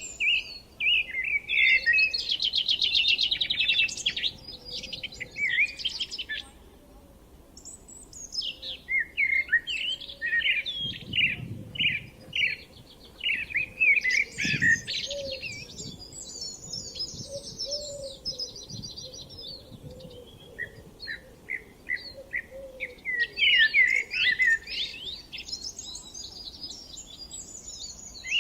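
Songbirds singing: phrases of rapid chirps and trills, pausing briefly around a quarter of the way in and again about two-thirds through before starting up again.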